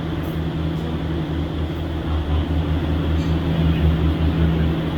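Steady low rumble of a running vehicle, with a constant low hum under it.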